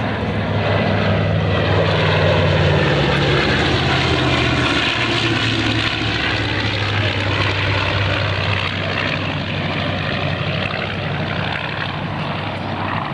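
B-25J Mitchell's two Wright R-2600 radial engines droning in a propeller flyby. The sound is loudest two to three seconds in, and the pitch drops a little about five seconds in as the bomber passes.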